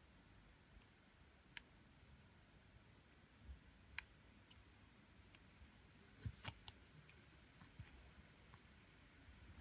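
Faint, scattered clicks and taps of fingers and fingernails handling small plastic figures, with a short cluster of louder taps a little past halfway as the figures are set on clear plastic stands.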